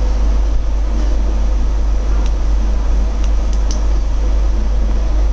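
A steady low hum of background noise, with a few faint sharp clicks about two and three and a half seconds in, from flashlight switches being pressed.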